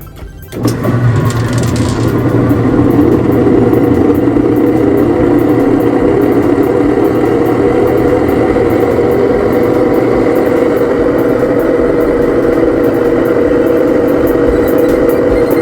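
A loud motor running steadily with an engine-like drone, starting abruptly about half a second in.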